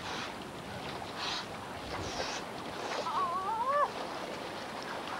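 Water splashing and lapping around swimmers in a seawater rock pool, with short surges of splashing about one and two seconds in. About three seconds in comes a brief, wavering high-pitched cry.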